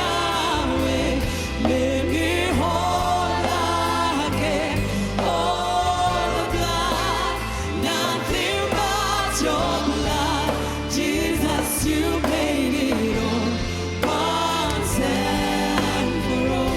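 Live gospel worship band playing, with vocalists and choir singing long, sliding lines over keys, bass and drums.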